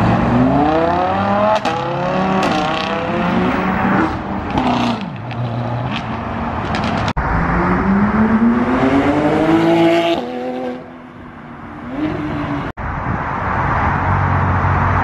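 Sports cars accelerating hard away one after another. First a Lamborghini Huracán's V10 revs up through several quick gear changes. Then a Porsche 911's flat-six climbs to high revs, and in the last couple of seconds a Corvette's V8 runs low as it pulls out.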